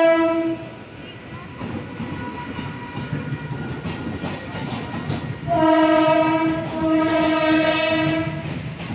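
MEMU electric train running through the station at speed, with wheels rumbling and clattering on the track. Its horn sounds at the start, stops about half a second in, and comes back about five and a half seconds in with a long blast that dips briefly in the middle and lasts about three seconds.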